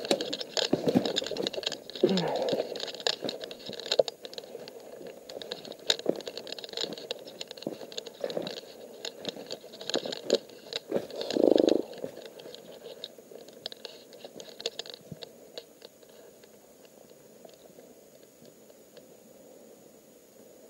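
Irregular crunching, snapping and crackling of footsteps through dry twigs and brushwood, mixed with clicks of the phone being handled. The clicks thin out about two thirds of the way in, leaving it nearly quiet.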